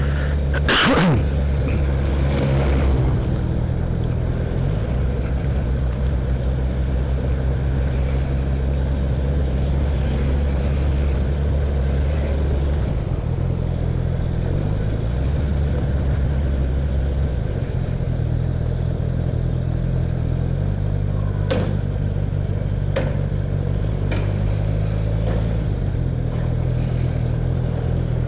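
Honda CB650F's inline-four engine running while riding, a steady drone that shifts pitch a few times, with road and wind noise. A brief loud sharp noise about a second in.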